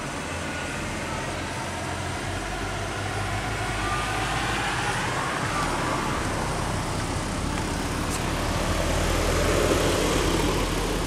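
Road traffic: a motor vehicle's engine running on the road, growing louder and loudest about ten seconds in, over a steady low engine hum.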